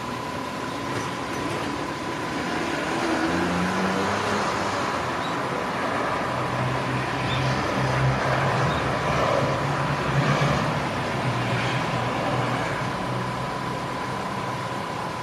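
A vehicle running past, its noise swelling in the middle and easing off toward the end, with low engine or motor tones and a steady high tone throughout.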